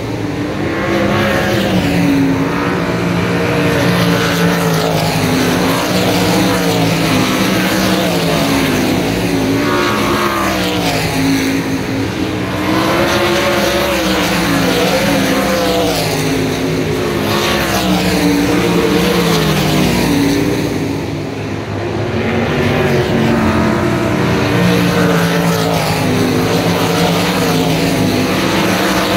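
Several winged sprint cars racing on a dirt track, their engines running flat out and rising and falling in pitch again and again as the cars pass and lift and accelerate through the turn.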